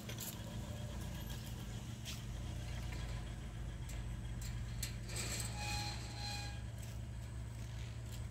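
A car engine running with a steady low hum as the car pulls away. Two short high tones sound a little past halfway through.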